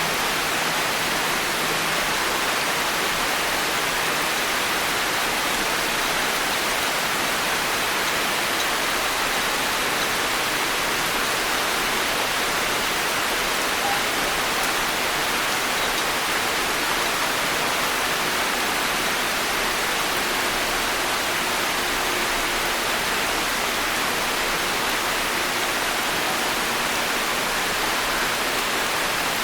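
Constant heavy rain falling on forest trees and foliage, a dense, even hiss of drops on leaves.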